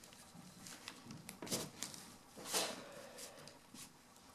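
Faint ticks and rustles of thin insulated wires from a car-stereo wiring harness being handled and twisted by hand, with a brief louder scrape about two and a half seconds in.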